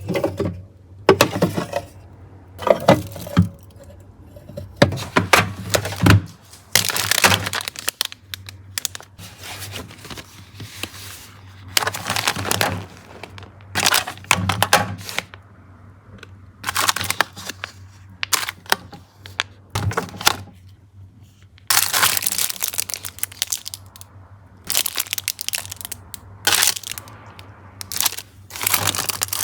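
Food packaging and containers being handled and moved: plastic crinkling, with clicks and clunks in irregular bursts.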